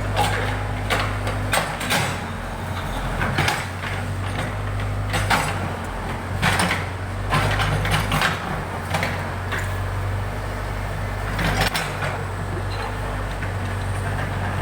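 Backhoe loader's diesel engine running steadily, with a dozen or so irregular sharp clanks and knocks from the machine's metal bucket and arm as it works.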